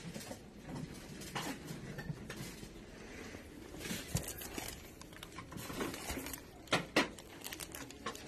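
Plastic-wrapped placemats and table linens being handled on a store shelf: scattered rustles and light clicks, with two sharper knocks near the end.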